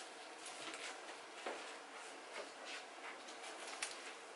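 Faint rustling and scattered light ticks of gloves being peeled off paint-covered hands.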